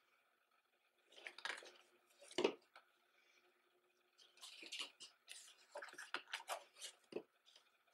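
Stiff paper rustling and being handled as the pages of a wall calendar are turned: a few short rustles about a second and two and a half seconds in, then a busier run of rustles and small scrapes in the second half.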